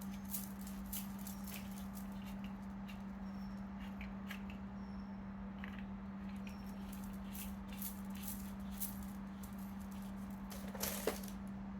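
Light handling noise from unpacking a microphone stand and its parts: scattered small clicks and taps, with a louder clatter near the end, over a steady low hum.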